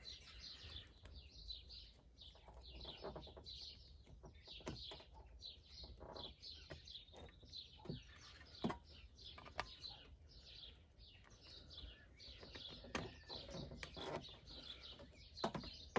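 Small birds chirping: many short, high notes that fall quickly in pitch, repeated through the whole stretch. A few faint clicks and knocks are scattered among them.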